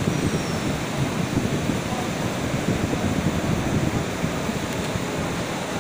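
Steady rumbling hum of a stationary diesel railway inspection car idling at the platform, with a faint murmur of voices.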